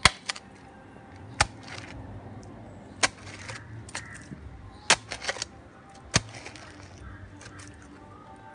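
Small metal digging blade chopping into stony soil to dig a hole: sharp strikes about every second or so, with a quick cluster of three about five seconds in, some followed by a short scrape of loosened soil and gravel.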